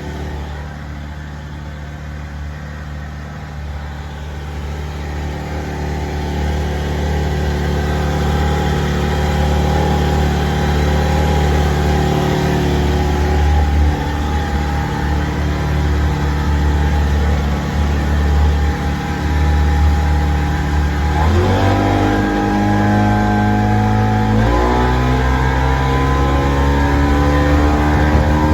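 Mercury 25 hp SeaPro two-stroke outboard motor, converted to 30 hp, running steadily and growing louder over the first several seconds. Near the end it is throttled up twice in quick steps, its pitch rising each time.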